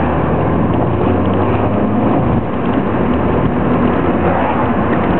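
Fiat Grande Punto Abarth's 1.4-litre turbocharged four-cylinder engine running steadily on the move, heard from inside the cabin together with road noise.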